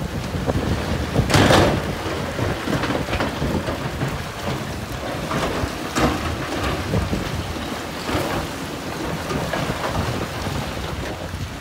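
Heavy earthmoving machinery working rock: a low diesel rumble under irregular crunching and clattering, with one loud crash about a second and a half in.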